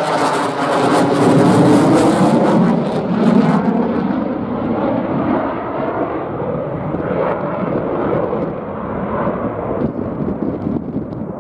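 Jet noise from a Eurofighter Typhoon's twin Eurojet EJ200 turbofans as it flies a display pass, with a sweeping, phasing quality as it goes by. Loudest in the first few seconds, then duller and a little quieter as the jet draws away.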